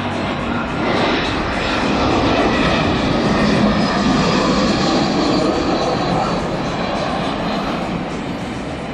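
Twin-engine jet airliner passing low overhead, its engines a loud steady rushing roar that slowly fades away over the last few seconds.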